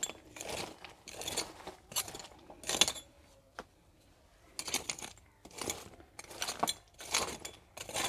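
A metal spade (phawda) scraping and striking stony ground, clearing rubble and broken concrete: a series of short, gritty scrapes with stones clinking against the blade, pausing briefly near the middle.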